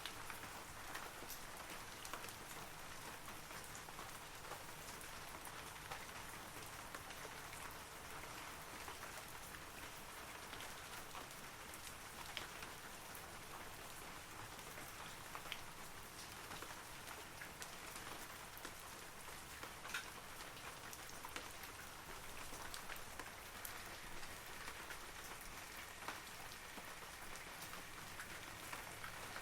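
Steady rain falling on forest trees, an even patter with individual drops ticking sharply here and there.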